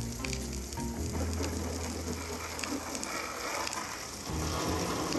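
A jet of water spraying against a pickup truck's painted side panels and splashing onto wet pavement: a steady hiss and splatter.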